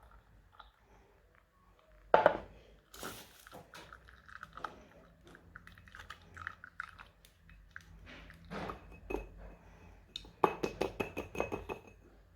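Kitchen handling sounds: utensils and dishes knocking and clinking, with one sharp knock about two seconds in and a quick run of clicks near the end.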